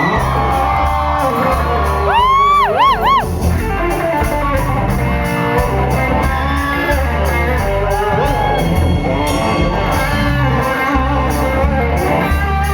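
Live country band playing an instrumental vamp with a steady beat, with a lead instrument playing a short run of bent notes that swoop up and down about two seconds in.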